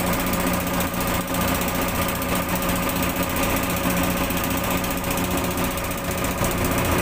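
Fishing boat's engine running steadily: a fast, even rattle over a low hum, heard from on deck.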